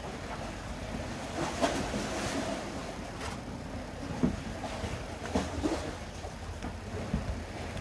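Sea waves washing with wind buffeting the microphone, a steady rumble with a few sharp knocks.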